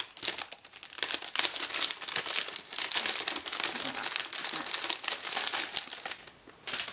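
Packaging crinkling and rustling in quick, irregular bursts as a small boxed item is handled and unwrapped by hand.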